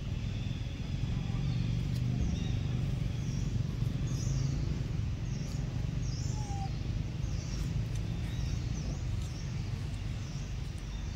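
Outdoor ambience: a steady low rumble with short, high chirps repeating every second or so.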